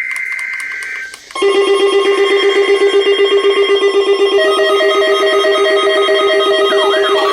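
Emergency Alert System tones: a brief buzzy digital data burst of the alert header for about the first second, then from about 1.4 s a loud chord of steady alert tones pulsing about four times a second, with further tones joining about halfway and a wailing siren-like sweep starting near the end.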